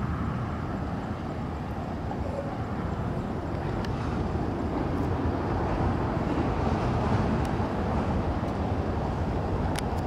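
Six Kawasaki T-4 jet trainers flying over in formation: a steady, low jet engine rumble that swells a little about halfway through.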